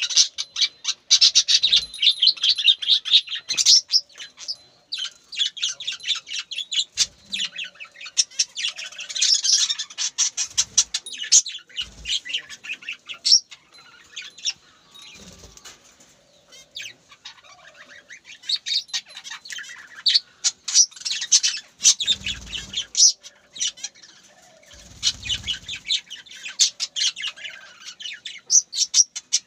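Birds chirping and chattering in rapid, dense bursts of high notes, with short pauses between bursts and a few soft low thumps.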